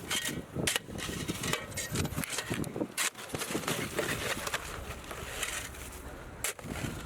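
A tool chipping and scraping at hard, icy packed snow, in a run of irregular sharp knocks and scrapes that eases off for a couple of seconds near the end.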